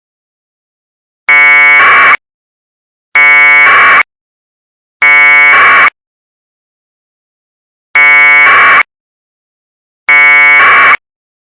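Emergency Alert System electronic buzzer, five harsh bursts of just under a second each at uneven intervals. Each burst starts as a buzzy tone and turns brighter and harsher halfway through.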